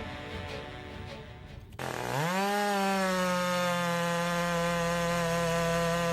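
Background music at first, then about two seconds in a power saw's motor starts up suddenly, spins up quickly and runs at a steady high pitch.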